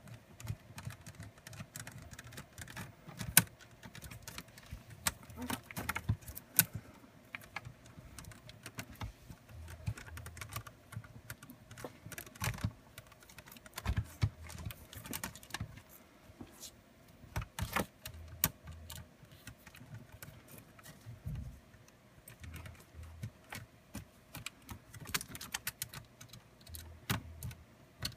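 Irregular small clicks and taps of a small Phillips screwdriver and fingers working on a laptop's plastic screen assembly while its screws are taken out.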